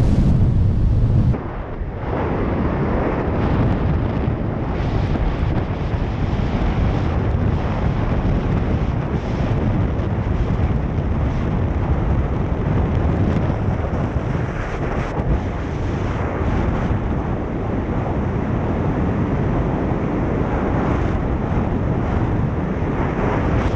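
Heavy wind buffeting the camera microphones of a tandem skydive in freefall, a steady rush with no voices. It is louder and deeper for the first second or so, then drops a little and holds steady.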